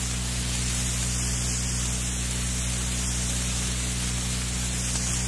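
Steady hiss with a low electrical hum underneath, the background noise of an old analogue lecture recording.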